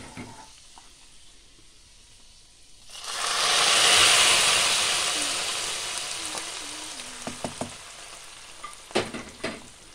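Hot ghee with fried cashews and raisins poured into a pot of wheat payasam, sizzling loudly about three seconds in and then fading slowly over several seconds. A few light knocks follow near the end.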